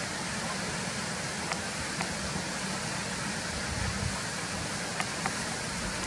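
Steady rushing of whitewater river rapids, an even roar of water with a few faint ticks.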